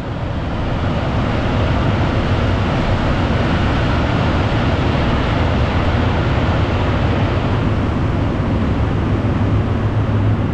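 Freight train rolling past on a nearby railway bridge: a steady, unbroken rumble of wagons.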